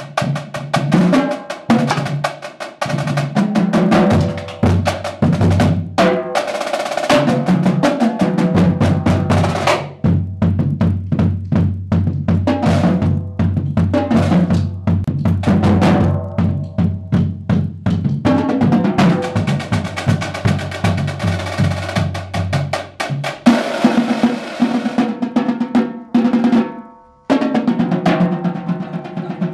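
Marching drumline battery of snare drums, tenor drums and bass drums playing an ensemble warmup piece, a dense stream of stick strokes and rolls. It breaks off briefly near the end, then comes back in.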